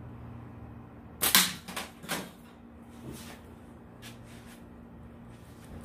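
A slingshot shot from a pair of small pliers used as an improvised frame: a sharp snap of the bands released about a second in, followed by a few fainter knocks and clicks.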